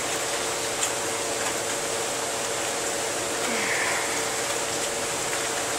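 Steady background hiss with a faint, even hum underneath; no distinct events.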